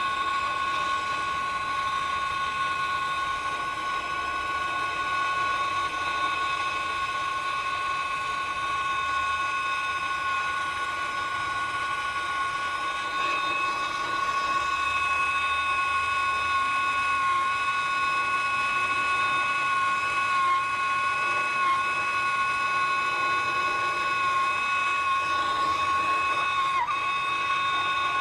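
Steady whistle at a few fixed pitches from a nitrogen flow indicator, showing nitrogen is flowing through the refrigerant lines while they are brazed, over the hiss of a brazing torch flame. The whistle grows a little louder about halfway through.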